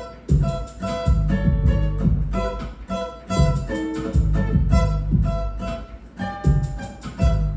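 Acoustic guitar being picked, one note after another, over a backing beat with a deep, steady bass line.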